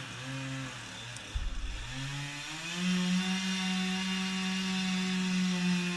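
Chainsaw revving up and down, then held at a steady high pitch from about two and a half seconds in as it cuts into the tree. A brief low thump about a second and a half in.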